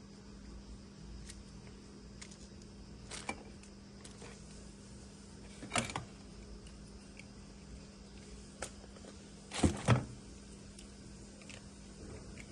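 Handling noises: a few short clicks and knocks, the loudest a close pair about ten seconds in, over a steady low hum.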